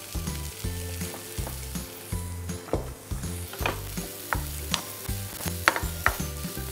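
Chopped eggplant sizzling in hot oil in a frying pan as a spatula stirs it, with several sharp scrapes and taps of the spatula on the pan from about the middle on.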